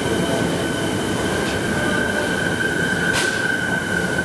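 Electric suburban train rolling slowly past along the platform: a constant rumble with a steady high-pitched wheel squeal, and a single sharp clack about three seconds in.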